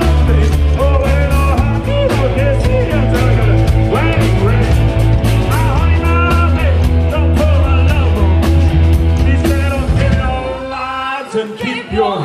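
Live rock band playing, with electric bass, drums and singing. The music stops about ten and a half seconds in, leaving voices.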